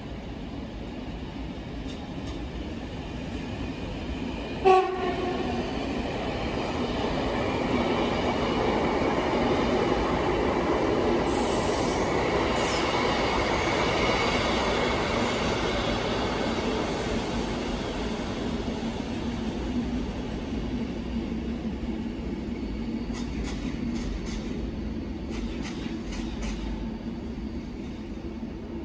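Electric passenger train passing along the platform track, a short sharp horn blast about five seconds in. Its rolling noise and motor whine then swell to a peak in the middle, with two brief high squeals, and slowly fade.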